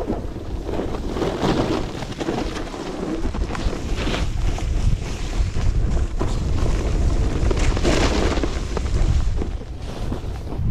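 Wind buffeting the microphone of a camera moving fast down a ski slope, a steady low rumble. A snowboard's edge scrapes and hisses on packed snow in several swells as it carves through turns.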